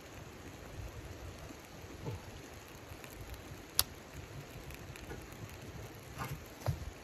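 Tinder and kindling crackling as a small wood stove's firebox is being lit, with a sharp click about four seconds in and two small knocks near the end.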